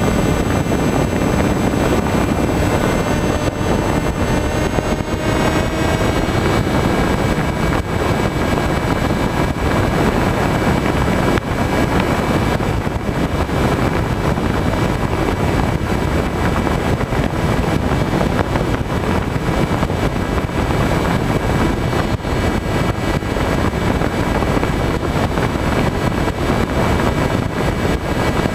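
Skywalker FPV plane's electric motor and propeller whining steadily under a heavy rush of wind over the onboard microphone. The whine rises slightly in pitch about five seconds in.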